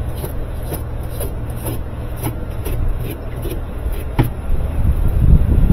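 Rhythmic scrubbing strokes, about two a second, as the splines of a Whirlpool washer's drive shaft are cleaned. A sharp click about four seconds in, and heavier low handling bumps near the end.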